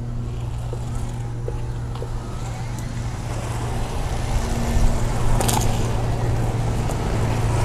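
Magic Mobility Frontier V6 power chair's two 800-watt front drive motors running as the chair drives across concrete: a steady low hum that slowly grows louder.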